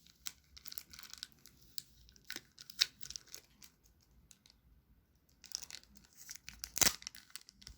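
Toy packaging being torn open and crinkled by hand, with scattered small clicks and rustles and one louder sharp crack near the end.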